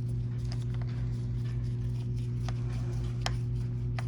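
Light metallic clicks and ticks from a Phillips screwdriver turning the clamp screws of a handlebar turn-signal switch, a few strokes spread over the seconds, over a steady low electrical hum.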